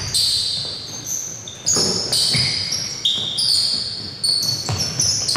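A basketball bouncing on a hardwood gym floor in repeated irregular thuds, amid many short high squeaks of basketball shoes on the court.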